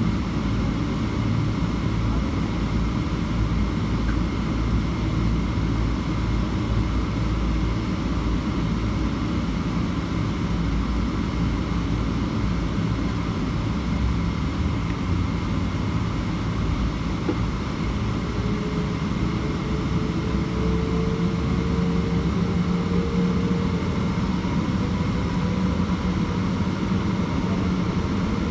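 Rolls-Royce Trent 800 turbofan engines of a Boeing 777 running at low power as the airliner taxis, heard from inside the cabin: a steady rumble with a constant high whine. About two thirds of the way in, a further whine joins and rises slightly.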